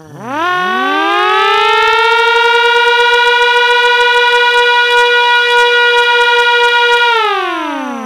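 Two small 12-volt electric siren horns, each a motor-spun rotor chopping the air, switched on together: they wind up in pitch over about two seconds to a steady wail at slightly different pitches. About seven seconds in the power is cut and they wind down, falling in pitch.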